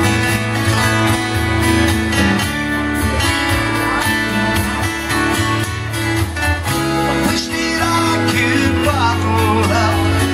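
Live solo acoustic guitar strumming the chords of a country-style song, an instrumental passage between sung lines.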